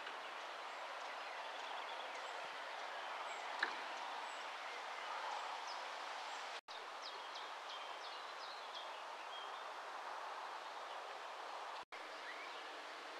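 Steady outdoor ambience: an even background noise with faint, scattered small-bird chirps, most of them in the middle. There is a single sharp click about three and a half seconds in, and two brief drop-outs to silence, about halfway through and near the end.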